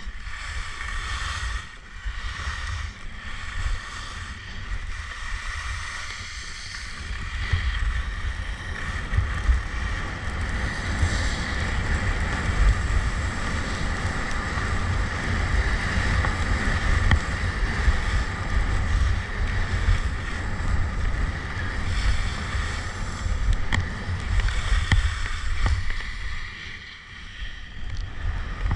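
Wind buffeting the camera microphone while skiing, over a continuous hiss and scrape of ski edges running on hard, icy snow. The noise eases briefly near the end.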